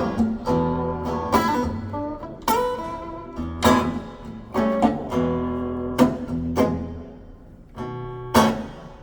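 Recorded music played back over Børresen C1 stand-mount loudspeakers, picked up by a phone: an instrumental passage of strummed guitar chords over a bass line, with sharp chord attacks every half second to a second.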